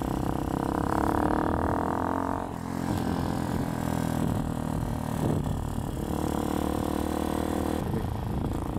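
Hawk 250's single-cylinder engine running under way on the motorcycle, its note climbing as it accelerates, with brief breaks about two and a half and five and a half seconds in before it steadies again.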